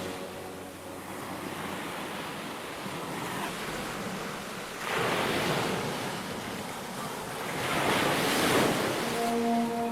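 Ocean waves washing onto a shore, with two larger waves surging in about five and eight seconds in.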